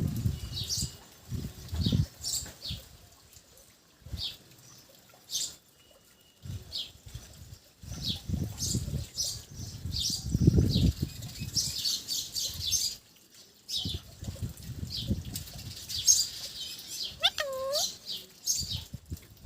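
Alexandrine parakeet giving short, sharp high chirps in irregular bursts, over repeated low rustling thumps, with a short whistled note near the end.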